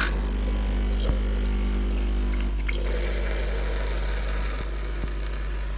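Spidem Divina Deluxe coffee machine's pump humming steadily as it primes the emptied water circuit with fresh water. A rougher rushing sound of water and air joins about three seconds in.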